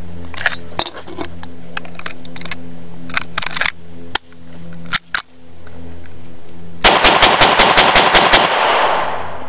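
Semi-automatic pistol shots. A few spaced single shots come in the first five seconds, then a rapid string of about a dozen shots in under two seconds near the end, over a steady low hum.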